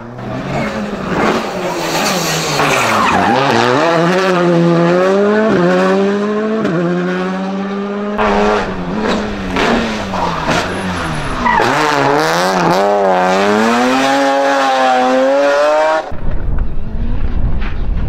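Rally car engines revving hard, the pitch climbing and dropping again and again through gear changes as the cars pass at speed. The sound jumps to another car about eight seconds in. Near the end it gives way to wind buffeting the microphone.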